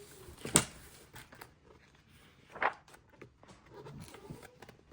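Paper pages of a thick instruction booklet being handled and flipped: two short sharp flicks, about half a second in and again near the middle, with faint rustling between.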